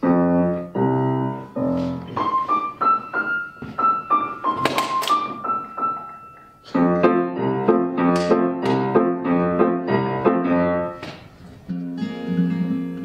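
Steinway grand piano playing a slow passage: sustained chords, then a single-note melody line above them, then fuller chords that die away. Shortly before the end an acoustic guitar comes in strumming.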